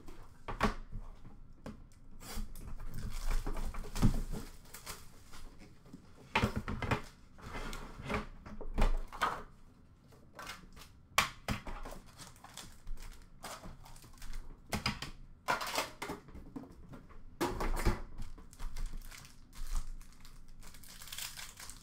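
Hockey trading cards and their foil pack wrappers being handled: irregular rustling and crinkling with sharp clicks and taps as cards are shuffled and stacked on a counter.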